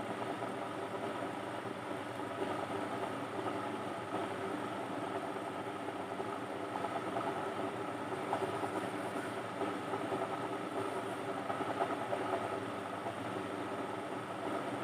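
Steady mechanical whirring noise that holds evenly throughout, with no distinct strokes or pauses.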